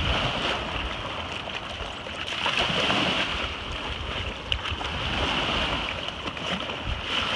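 Small waves washing onto the shore and a puppy splashing through the shallows, with wind rumbling on the microphone.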